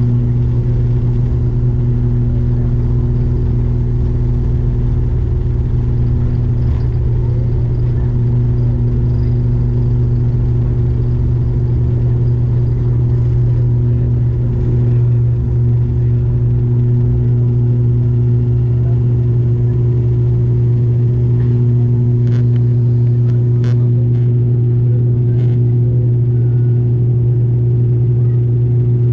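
Steady drone of an airliner's turboprop engines and propellers heard inside the cabin: a low hum held at one fixed pitch. Three faint clicks come a little after two-thirds of the way through.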